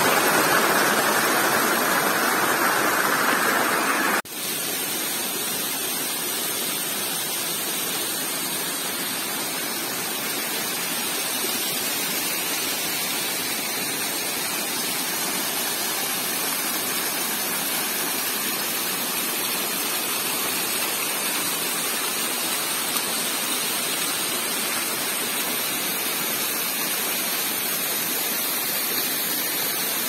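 Steady rush of water falling and cascading over rock ledges at a waterfall. Louder and fuller for about the first four seconds, then it drops suddenly to a quieter, even rush.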